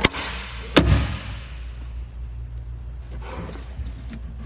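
Lid of a boat's built-in cooler knocking as it is opened: a sharp knock, then a heavier knock with a thud about a second later, followed by a fading hiss.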